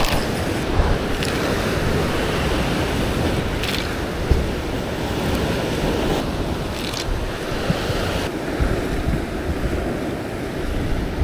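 Ocean surf washing below the cliffs with wind buffeting the microphone, a steady rushing noise. There are brief clicks about four and seven seconds in.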